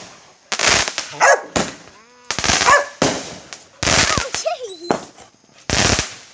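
Aerial firework shots going off, about six sharp bangs a second or so apart, with a frightened dog barking and whining between them.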